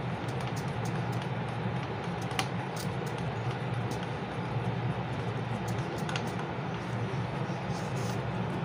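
Steady background hum and hiss with a few faint light clicks of a screwdriver turning a screw on a circuit board's heatsink.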